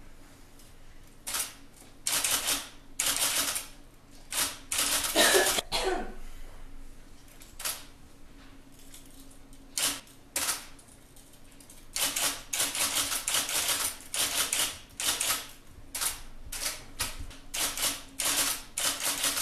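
Typewriter keys clacking in quick runs of strokes, with short pauses between the runs.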